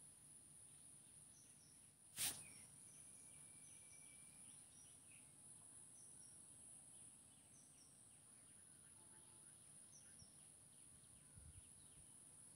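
Faint background of small birds chirping now and then over a steady high hiss, with one sharp click about two seconds in.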